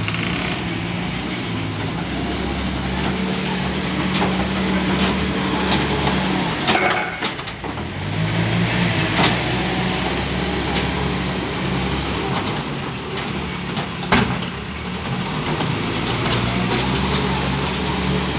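Bobcat B900 backhoe loader's engine running steadily under work. There is a loud, ringing metallic clank about seven seconds in, as the engine note briefly dips, and sharper knocks later on.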